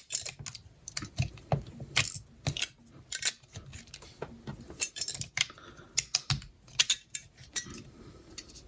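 9mm cartridges clicking into a Glock magazine as a speed loader presses the spring down and each round is popped in: a string of sharp, irregular metallic clicks and clacks.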